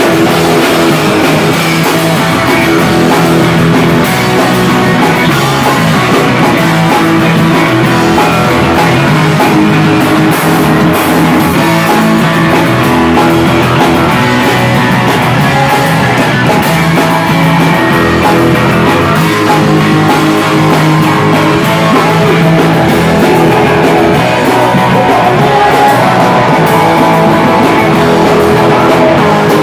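Live rock band playing loud, with electric guitar and drums, without a break.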